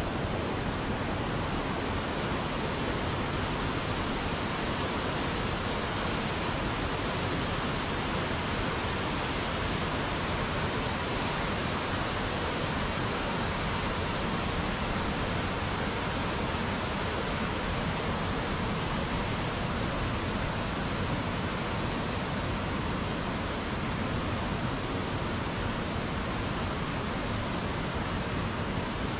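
Running water rushing steadily, an even unbroken noise with no change in level.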